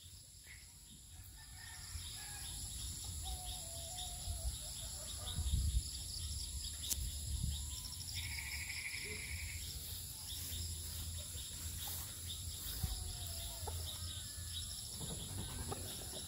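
Insects chirping steadily, a dense rapid ticking with high steady tones, and a buzzy trill lasting about a second and a half some eight seconds in. A few faint bird calls rise above it, over a low rumble.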